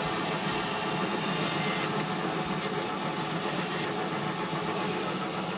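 Drill press running with a steady motor hum while its bit grinds into the skull plate at the base of a set of deer antlers. The gritty cutting noise lasts about two seconds, then comes twice more, briefly.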